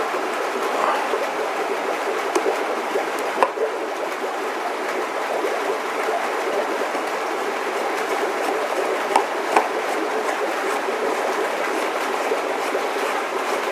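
Steady rushing background noise with a few sharp clicks of plastic filter parts being handled and pushed together, about three seconds in and twice more around nine and a half seconds.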